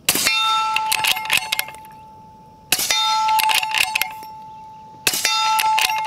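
Three shots from an integrally suppressed .44 Magnum bolt-action rifle, about two and a half seconds apart, each followed at once by the long ring of a struck steel target that fades slowly.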